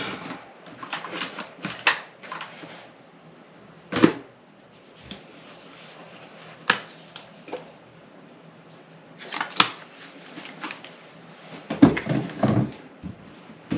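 Scattered clicks and knocks of small toiletry bottles and containers being handled, picked up and set down, with the sharpest knock about four seconds in and a cluster of handling noises near the end.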